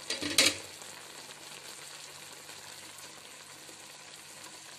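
Chicken pieces sizzling steadily and softly in the juices they have released in a karahi, with a brief loud clatter near the start.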